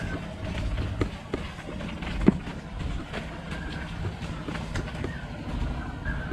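Mountain bike rattling over a rough dirt trail: a steady low rumble with frequent small clicks and knocks from the bike, and one sharper knock about two seconds in.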